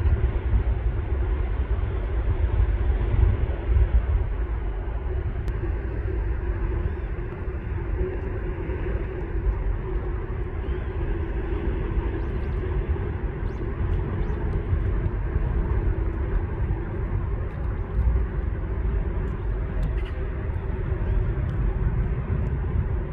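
Steady outdoor background rumble, like city traffic, with no distinct events.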